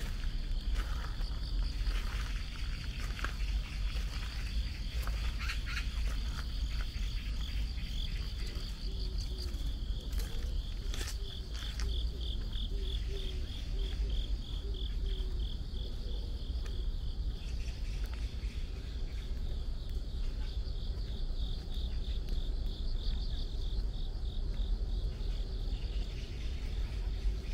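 Crickets chirping from the grass in a steady high pulsed trill, about four pulses a second, over a constant low rumble with a few sharp clicks.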